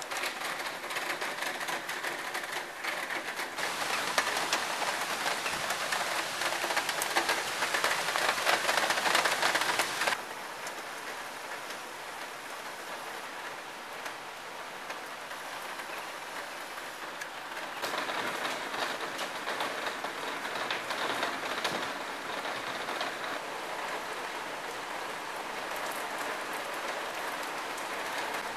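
Heavy rain falling steadily, the hiss studded with close drop impacts. It grows louder for a few seconds, drops off suddenly about ten seconds in, and swells again past the middle.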